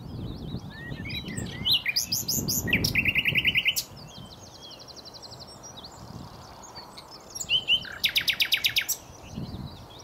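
Common nightingale singing: scattered short whistled notes, broken by two loud runs of fast repeated notes, one about two seconds in and another near the end.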